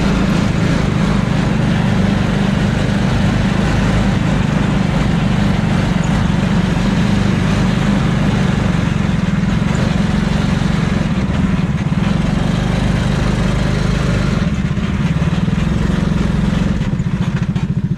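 Engine and exhaust of a Cobra-style replica roadster, heard from its open cockpit, running steadily as it drives slowly in second gear. Near the end the engine note drops into an even, pulsing idle.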